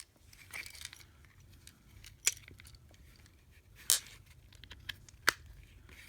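Small diagonal cutter pliers snipping, three sharp snaps about a second and a half apart, with a softer scuffle of handling near the start.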